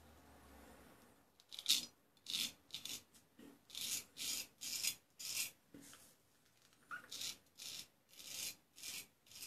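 Straight razor scraping stubble off a lathered cheek in about a dozen short, separate strokes, each a brief high rasp.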